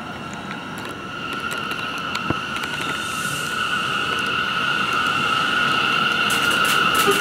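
Bombardier R179 subway train approaching along the platform, its running noise growing louder under a steady high-pitched whine. A quick run of clicks from the wheels over the rail joints starts near the end.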